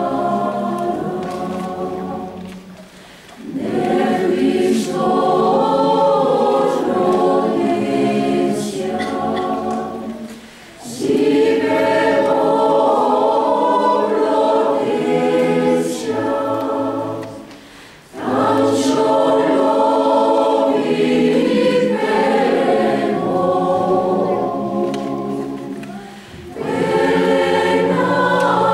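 Mixed choir of women's and men's voices singing a slow piece in long phrases. Each phrase is separated by a brief drop in sound, about every seven to eight seconds.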